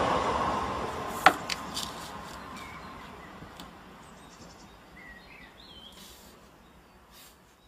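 A steady rushing noise dying away over several seconds, with a sharp click just over a second in and a few lighter clicks after it. Faint bird chirps come through as the noise fades.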